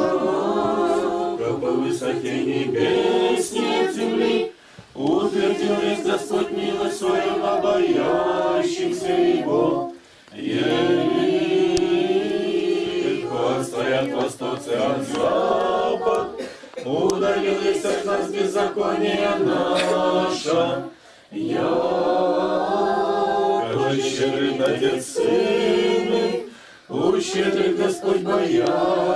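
Mixed voices of an Orthodox church congregation singing a hymn a cappella. The singing comes in long held phrases, with a short break for breath every five or six seconds.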